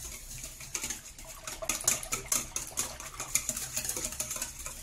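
Wire whisk beating thin, liquid crêpe batter, still without flour, in a stainless steel bowl. Many rapid clicks and rattles a second as the wires strike the metal bowl and churn the liquid.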